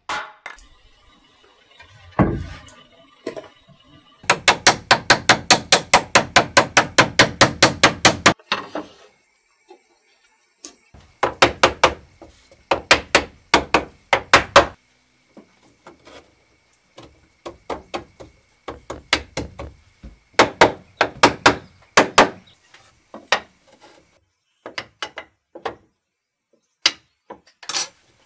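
Hammer blows on wood. A fast even run of about six strikes a second lasts some four seconds, followed by short groups of a few blows each.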